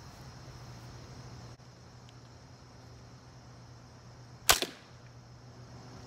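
Barnett crossbow firing once, about four and a half seconds in: a single sharp crack of the string and split limbs releasing, with a brief ring after, the limbs damped by rubber limb dampeners wedged between them.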